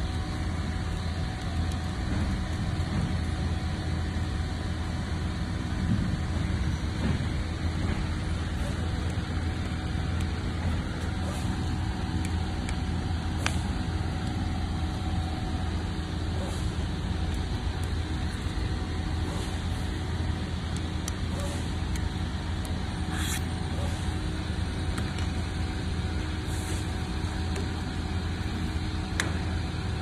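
Steady low hum and hiss of background noise, with a few faint clicks from the e-bike's shifter and cables being handled.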